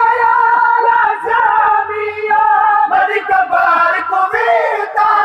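A noha, a Shia mourning lament, sung in a high, sustained male voice amplified through horn loudspeakers, with a crowd of mourners singing along.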